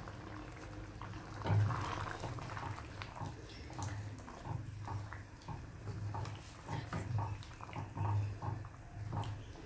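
Thick fish curry boiling in a pot, bubbles bursting in low, repeated blurps about once or twice a second, as coconut milk is poured in.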